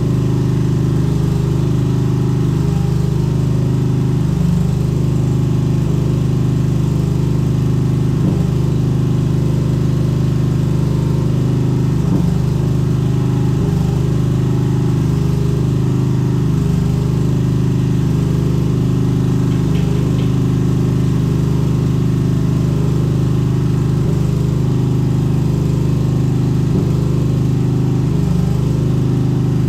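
An engine running steadily at idle, its note wavering slightly about every four seconds.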